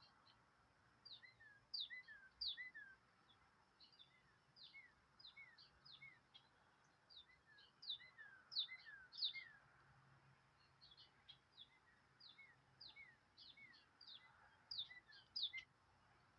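Small birds chirping: many short, high, downward-slurred chirps coming in scattered bunches, faint against a light background hiss.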